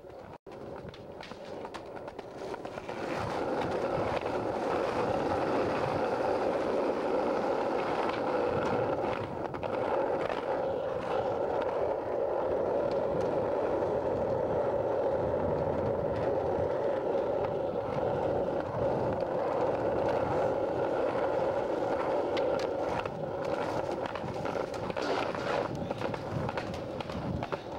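Skateboard wheels rolling on a concrete sidewalk, a steady rumble that builds over the first three seconds and then holds, with scattered clicks and knocks from pavement joints and board impacts.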